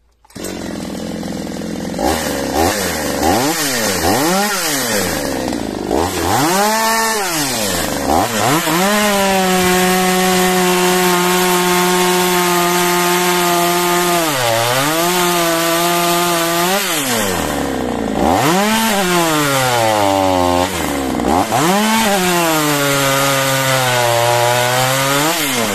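Oleo-Mac GSH 560 two-stroke chainsaw revved up and down in several quick blips, then held at full throttle while cutting into a log. It makes two long cuts with free revs between them. In the second cut the pitch sags under load. The sound stops abruptly at the end.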